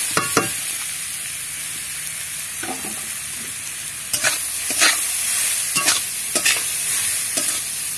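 Grated carrot sizzling steadily in hot ghee in a metal kadai, while a metal spatula stirs it, scraping and knocking against the pan several times.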